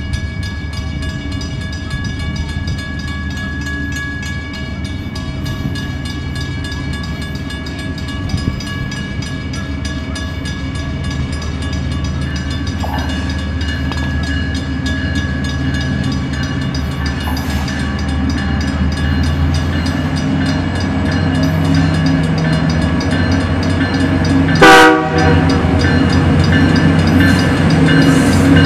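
Union Pacific diesel freight locomotives approaching, their engine rumble growing steadily louder, with the horn sounding as steady high tones throughout. A single sharp, loud knock comes near the end.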